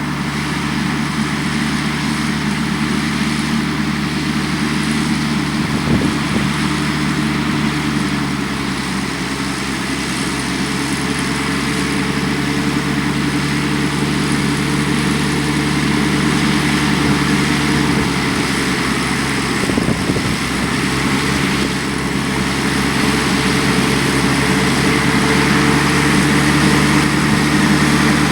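Tractor engine running steadily under load while pulling a five-furrow reversible plough through the soil, growing slowly louder as it comes closer.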